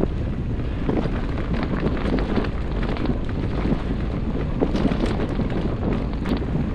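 Mountain bike rolling fast along a dirt singletrack: steady wind rush on the bike-mounted camera's microphone and tyre noise, with frequent irregular clicks and rattles from the bike jolting over bumps.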